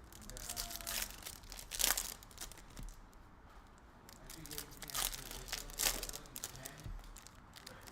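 Trading-card packs and wrappers being handled: crinkling and tearing of wrapper material, with sharper rustles about two, five and six seconds in.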